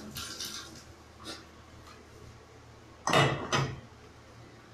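Kitchen dishes and utensils clattering, with two loud sharp knocks about half a second apart around three seconds in.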